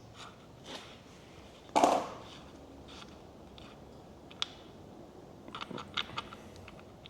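Metal tool and parts handling on a gearbox case: a scraping clunk about two seconds in, then a sharp click and a short run of light metallic clicks near the end.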